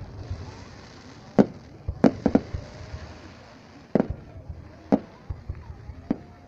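Fireworks bursting: a series of sharp bangs at uneven intervals, with a quick run of three about two seconds in, then single bangs roughly a second apart.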